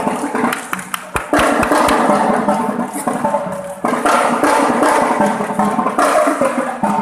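A drum and bell corps playing: snare and bass drums with bell lyres, plus a run of sharp stick clicks about a second in.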